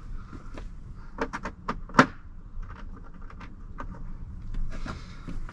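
Hand tools clicking and clinking: a socket being tried on a small bolt and swapped out. The clicks come at irregular intervals, with the loudest sharp clink about two seconds in.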